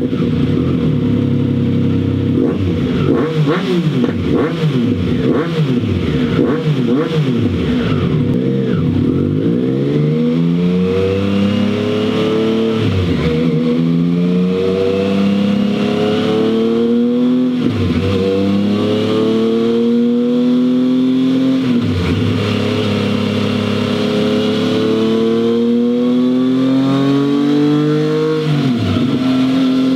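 Triumph Tiger Sport 660's inline three-cylinder engine, breathing through a Scorpion stainless full exhaust system, run on a dyno. It starts with a string of quick throttle blips. From about ten seconds in it accelerates through the gears, the revs climbing in long rising sweeps and dropping back at each of about four shifts.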